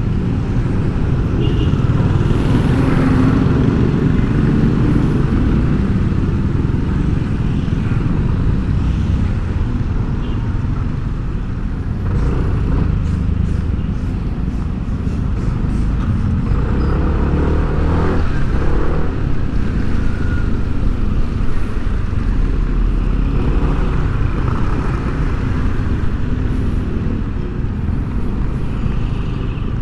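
Steady low rumble of a moving road vehicle: engine and road noise heard while riding in traffic.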